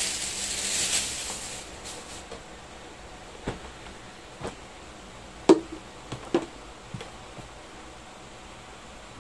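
Hand handling folded denim jeans: a brief rustle of cloth, then a handful of short knocks and taps, the loudest about five and a half seconds in, as the jeans are set down on a cloth-covered surface.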